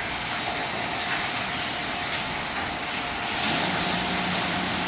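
Car wash running: a steady hiss of spraying water with a machine hum under it, and a lower hum joins about three and a half seconds in.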